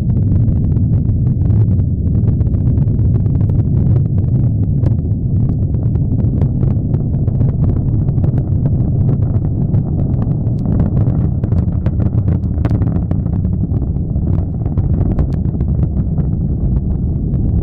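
Proton-M rocket engines at liftoff and during the climb: a loud, continuous rumble shot through with constant crackling.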